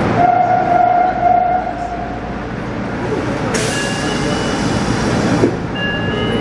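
Subway train standing at a station platform, its equipment running with a steady noise. A held tone sounds for about two seconds near the start, and a hiss lasts about two seconds midway.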